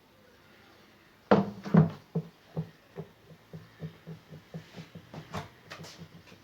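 A run of hollow knocks: two heavy ones about a second in, then lighter knocks at roughly three to four a second.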